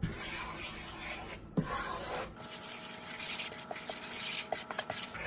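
A wooden spatula stirring and scraping a thick paste of chilli and spice powders in sesame oil around a metal pan, a continuous rasping rub.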